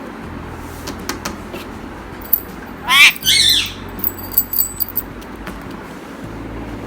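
Indian ringneck parrot giving one loud squawk made of quick rising sweeps about three seconds in, with a few sharp clicks before it and faint high chirps after.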